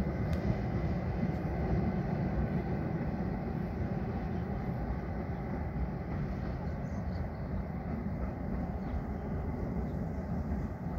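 ETR 421 'Rock' double-deck electric train crossing a bridge at a distance: a steady low rumble of wheels on rails that slowly fades as it moves away.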